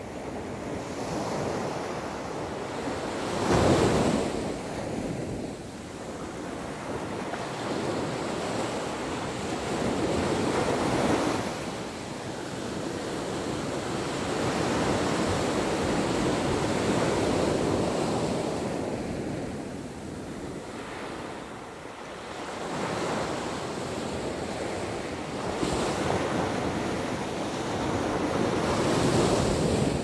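Small ocean waves breaking and washing up onto a sandy beach, the rush of surf swelling and fading with each wave; the loudest break comes about four seconds in.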